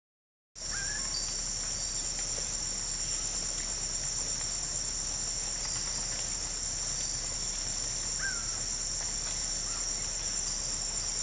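Steady, high-pitched insect chorus that cuts in abruptly about half a second in and holds unchanged, with two faint short chirps over it.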